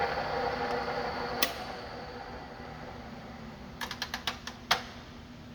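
Solberga 24-inch drill press running at its 120 rpm speed, switched off with a click about a second and a half in and winding down; near the end a quick run of clicks and a sharper clack as the gear levers are shifted to the next speed.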